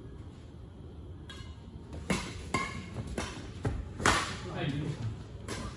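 Badminton rackets striking a shuttlecock in a rally: a run of sharp smacks starting about two seconds in, the loudest about four seconds in, with players' brief calls between them.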